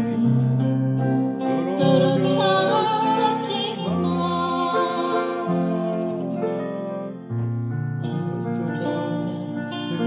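Slow ballad played on a digital piano, with a recorded accompaniment that includes guitar playing along.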